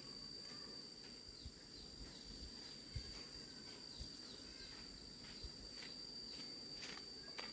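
Faint rural ambience: a steady high-pitched insect trill with short falling chirps repeating over it. A few soft low thumps come about one and a half, three, four and five and a half seconds in.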